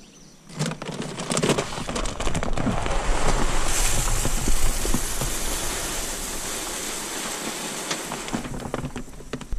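Sunflower seed pouring from a paper sack into a cloth bag, a steady rattling hiss that builds over the first few seconds and eases off near the end.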